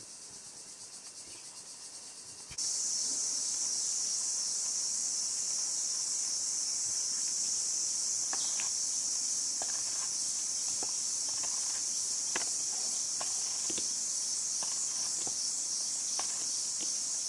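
A steady, high-pitched insect chorus that gets suddenly louder about two and a half seconds in. Scattered light clicks of a knife cutting ridge gourd join it from about eight seconds on.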